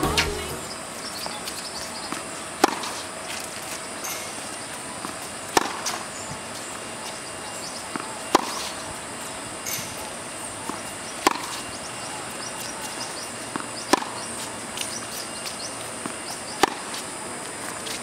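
A tennis racket striking the ball in a baseline rally on a hard court: six sharp pops, about one every three seconds, with fainter knocks between them.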